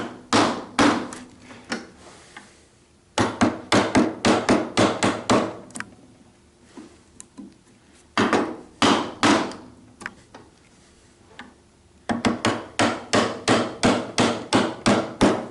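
A mallet striking a chisel as it chops a mortise into a timber board: sharp knocks about three a second, in four bursts with short pauses between, the last burst the longest and quickest.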